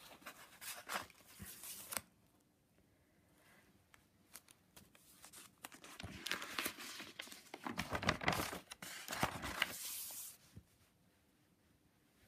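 Paper pages of a ring-binder junk journal being handled and turned, rustling and crinkling in two bouts: a short one in the first two seconds and a longer, louder one from about six to ten seconds in.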